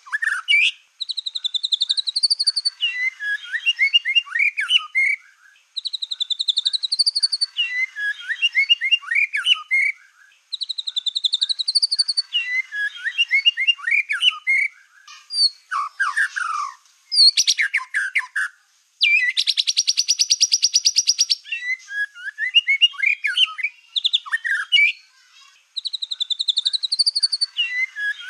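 White-rumped shama (black-tailed murai batu) in full song, loud, in phrases repeated about every four seconds: a rising warbled trill, then a jumble of lower whistled notes. Past the middle comes a fast buzzy rattle lasting about two seconds.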